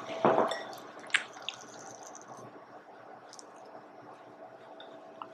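Soft squishing and light taps as sticky banana, peanut butter and oat dough is pressed flat by hand, mostly in the first second and a half, then faint.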